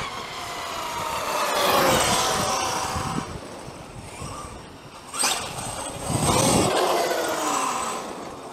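Traxxas XRT radio-controlled truck driven hard: its electric motor and drivetrain whine, the pitch gliding up and down with the throttle. The sound swells about two seconds in, fades, then rises sharply again about five seconds in.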